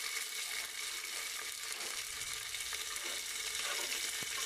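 Fenugreek seeds and a red akabare chili sizzling in smoking-hot mustard oil in a pressure cooker: a steady sizzle with small crackles, the spice-tempering stage before the onions go in.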